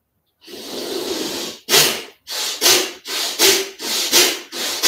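A person doing Bhastrika (bellows breath) pranayama. It starts with one long, deep breath through the nose about half a second in, then goes into forceful, rhythmic breaths in and out through the nose, with a sharp, strong exhale about every three quarters of a second.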